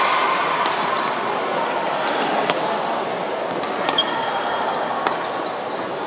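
Badminton rally sounds in a large, echoing sports hall: several sharp racket-on-shuttlecock hits and a few brief high squeaks of shoes on the wooden court, over a steady murmur of voices.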